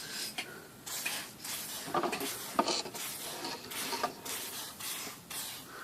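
A run of short swishing strokes, about one every half to three-quarters of a second, as the plastic cover of a Smith Corona electric typewriter is worked over in the final polishing step.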